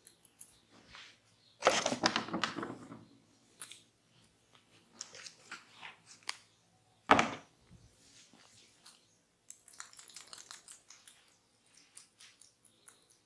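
Close-up massage sounds: hands rubbing and crackling against oiled skin and hair, loudest for about a second near two seconds in, with one sharp, loud click about seven seconds in.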